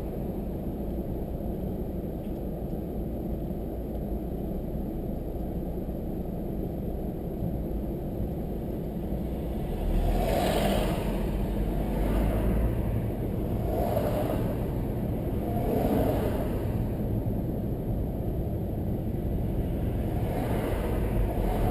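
A car driving: a steady low rumble of road and engine noise, with several louder whooshing swells about halfway through and again near the end.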